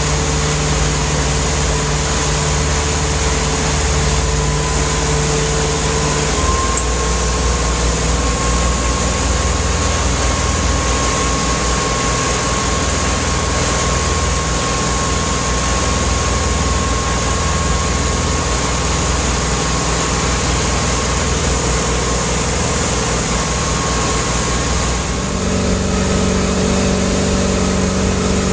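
Motorboat engine running steadily while towing an inflatable tube, heard from aboard the boat over the rush of its wake. The engine note changes about six seconds in and again near the end.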